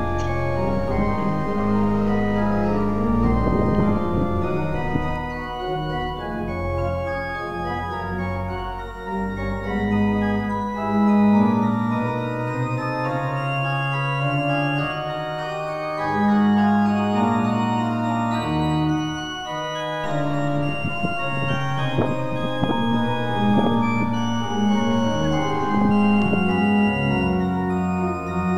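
Organ music: slow, held chords that change every second or few.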